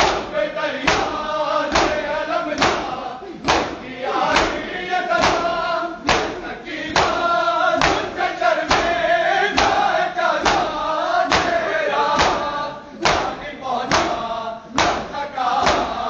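A group of men singing a noha (Shia mourning lament) together while striking their bare chests in unison in matam, a sharp slap landing a little faster than once a second in a steady beat.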